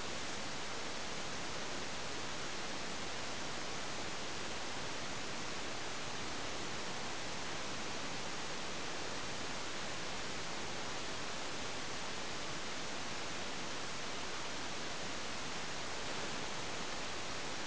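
Steady, even hiss from a model rocket's onboard camera microphone, with nothing else heard: the electronic noise of the recorder itself.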